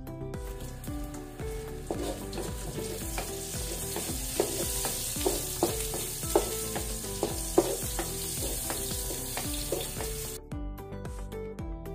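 Onion, garlic and sliced peppers sizzling in hot oil in a wok, stirred with a wooden spatula that knocks and scrapes against the pan several times. The sizzling cuts off suddenly near the end, with background music underneath throughout.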